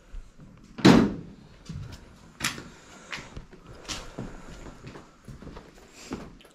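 Footsteps on a floor littered with debris and broken glass, about one every 0.7 seconds. The first, about a second in, is a loud thud.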